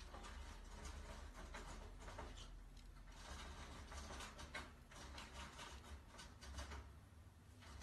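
Near silence: room tone with faint scattered rustles and small clicks.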